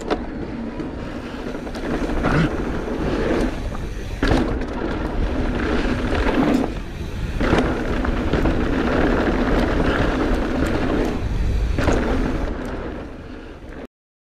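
Mountain bike ride on a dirt trail: wind buffeting the microphone over tyre noise, with the bike clattering and knocking over bumps. The sound cuts off abruptly near the end.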